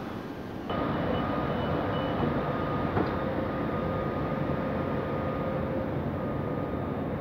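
Railjet train hauled by an ÖBB class 1116 Taurus electric locomotive, a steady rumble with a thin, even high whine from the locomotive's electrical equipment, louder from about a second in.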